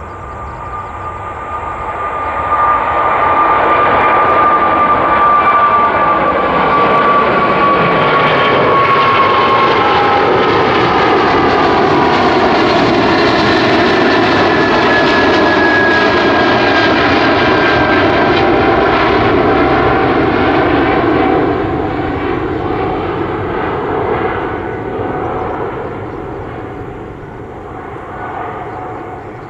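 Boeing 777-300 airliner's twin turbofan engines at takeoff thrust as it climbs out past overhead. The sound swells about two seconds in and holds loud, with engine tones gliding slowly down in pitch as the aircraft passes. It fades over the last several seconds as the aircraft moves away.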